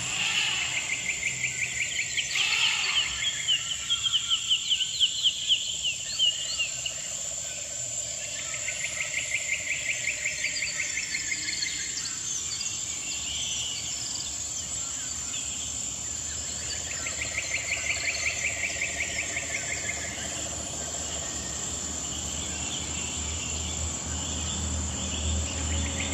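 Insects chirping in rapid pulsed trills that come in bouts of a few seconds, repeating several times over a steady background hiss.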